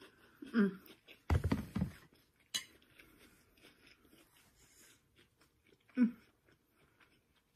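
A person chewing a mouthful of stir-fry and rice, with two short falling 'mm' hums, one about half a second in and one about six seconds in. About a second and a half in comes a loud, low clatter of handling or a plate, with small clicks of a fork here and there.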